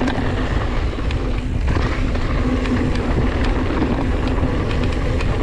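Sound of a ride in motion: wind rumbling on the microphone over a steady hum, with scattered light rattles and clicks.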